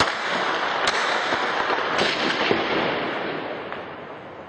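Heavy gunfire that breaks out suddenly, with a few sharper shots in the first two seconds, echoing and dying away over the last couple of seconds.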